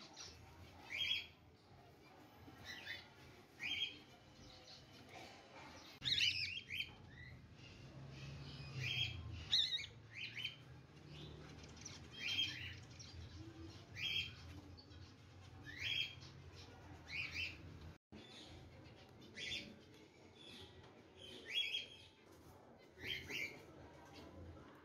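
Zebra finches chirping at a nest of young nestlings: short, high chirps repeating about every one to two seconds, with some low rustling in the nest partway through.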